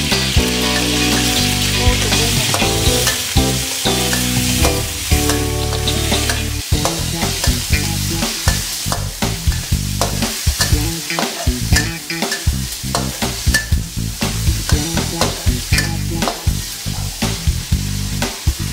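Chicken frying and sizzling in oil in a wok, stirred with a metal spatula. From about a third of the way in, the spatula scrapes and knocks against the wok in quick, frequent strokes.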